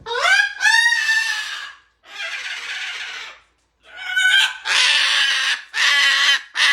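Cockatoo screeching and squawking: a rising squawk at the start, a long harsh screech, then a quick run of loud calls from about four seconds in.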